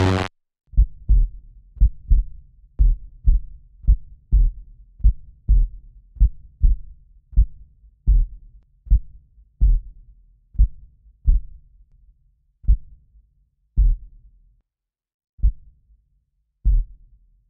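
Heartbeat sound, low double thumps at about one beat a second, slowing and thinning to single, more widely spaced beats near the end. Just before it starts, the preceding electronic music cuts off abruptly.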